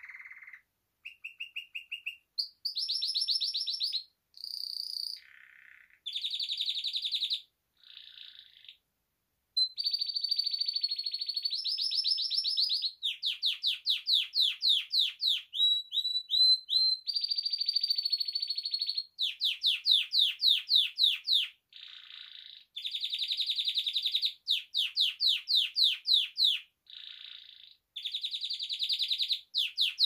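Domestic canary singing: a long song built phrase after phrase from rapid trills and quick runs of repeated sweeping notes. It has short breaks between phrases in the first ten seconds and is almost unbroken after that.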